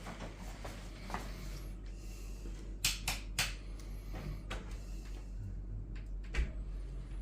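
A handful of sharp clicks and knocks as a part is fitted back into a boiler, three in quick succession about three seconds in and another a little later, over a steady low hum.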